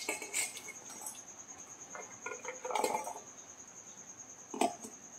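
Light clinks, taps and rustles of chopped onion, garlic, ginger and green chillies being picked off a steel plate and dropped into a steel mixer-grinder jar. There are a few short knocks, the busiest about three seconds in, over a faint, steady, high-pitched pulsing tone.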